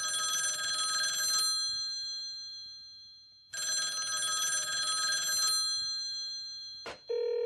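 Telephone ringing twice, each ring about two seconds long and trailing off, with a pause between. Near the end comes a click and then a steady electronic tone as an answering machine picks up.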